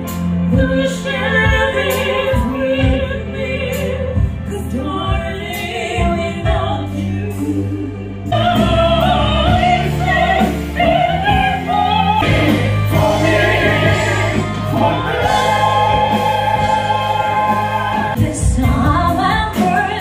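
Live stage-show music: female and male voices singing into microphones over grand piano and band accompaniment, growing fuller and louder about eight seconds in.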